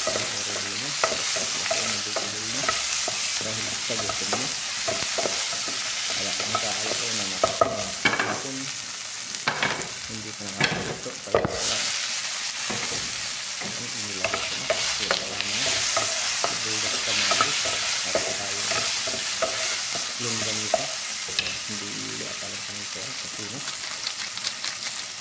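Tomatoes, shallots and sliced sausage boiling down in a pot: a steady bubbling hiss that turns toward a frying sizzle as the water cooks off. A spatula stirs and knocks against the pot a few times around the middle.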